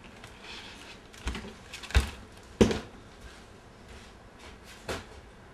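Handling knocks and thumps from a person moving about a small room with a wooden floor: one light knock, then two loud ones about half a second apart, the second ringing briefly, and a lighter knock near the end.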